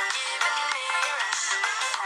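Background electronic music.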